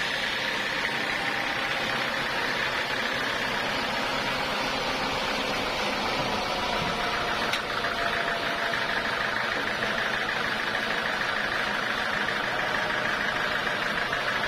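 Sawmill saw machinery running steadily, with one short click about halfway through.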